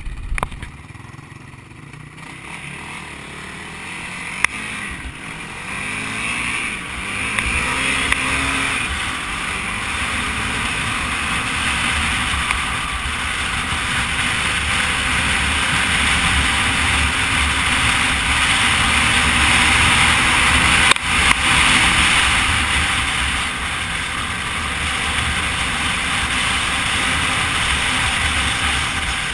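Yamaha sport quad's engine heard from on board, picking up speed a few seconds in and then running hard down a dirt trail. Wind rushes over the microphone throughout, and there are a couple of sharp knocks.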